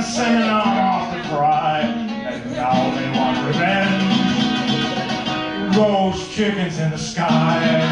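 A man singing a song while strumming a solo acoustic guitar.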